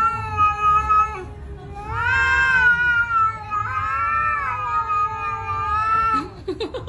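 A cat yowling in a series of long, drawn-out calls, each held steady for a second or more, with a short rough sound near the end.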